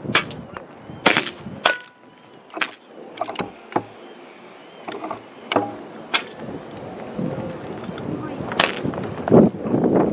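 Air rifles firing on a competition shooting line: a series of sharp shots at irregular intervals, some loud and some fainter. A rougher rustling noise swells near the end.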